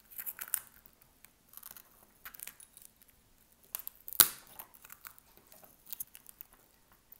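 Shattered back glass of an iPhone 13 being pried off under its plastic film: scattered small cracks, clicks and crinkles, with one sharp snap about four seconds in.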